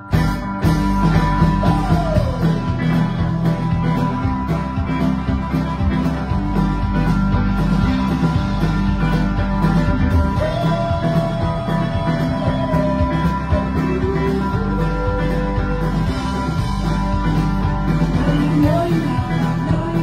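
Live band playing a rock-country song at full volume: banjo, electric guitar and drum kit with a steady beat, and a voice singing over it.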